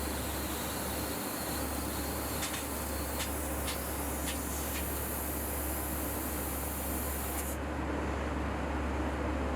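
Laser cutting machine cutting 12 mm carbon steel plate: a steady hiss of the cutting jet over a low machine hum, with a few sharp crackles in the first half. The high part of the hiss cuts off abruptly about three-quarters of the way in, while the hum carries on.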